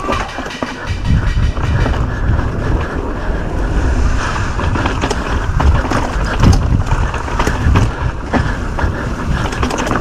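Wind buffeting the microphone as a downhill mountain bike descends at speed, with a low rumble of tyres on rough ground and scattered knocks and rattles from the bike.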